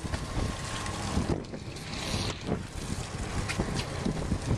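Low, uneven rumble of a fishing boat, with wind buffeting the microphone and a few knocks.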